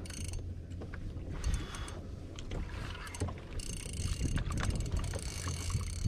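Sea water slapping against a plastic fishing kayak's hull under a steady rumble of wind and swell. Short clicks and a whirring from the fishing reel come about 3.5 s in, as a hooked fish is fought.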